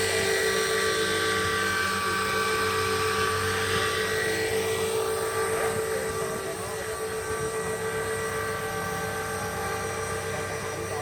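Electric 450-size RC helicopter (Tarot 450 Pro with an MD500 scale body) flying, its motor and rotor giving a steady high whine. The sound swells as it passes around four to five seconds in, then is a little fainter.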